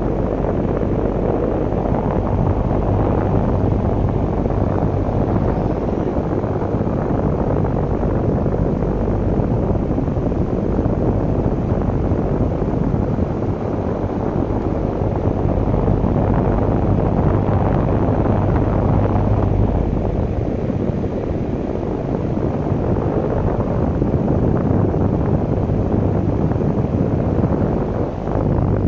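Strong storm wind buffeting the microphone: a loud, rough, continuous rushing with a low steady hum underneath.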